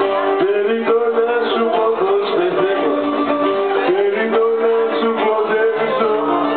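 Live Greek music from a small band, led by a plucked string instrument playing a steady melody.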